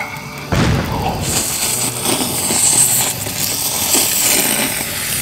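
A person slurping a long mouthful of noodles wrapped around grilled beef: a low thump about half a second in, then one long, steady slurp that lasts until near the end.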